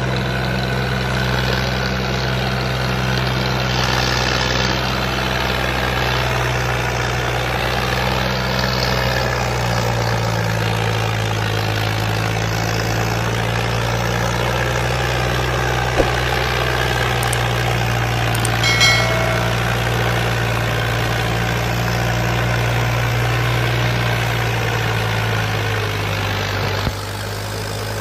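Powertrac Euro 50 tractor's diesel engine running steadily under heavy load, hauling a fully loaded trolley up a sandy track. The engine note drops a little about ten seconds in as it labours.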